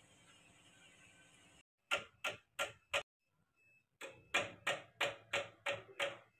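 A faint steady hum stops abruptly, then comes a run of sharp knocks: four quick strokes, a short pause, then seven more at about three a second.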